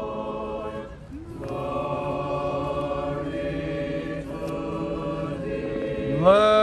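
Orthodox liturgical chant: voices holding long sung notes over a steady low drone, with a brief break about a second in and a voice gliding up into a new, louder note near the end.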